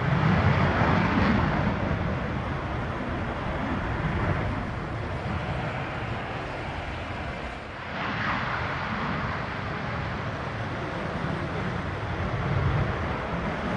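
Su-22M4 Fitter jet's Lyulka AL-21F-3 turbojet running at high power on the takeoff run, a loud, dense rushing noise. It is loudest at the start, dips briefly about eight seconds in, then rises again.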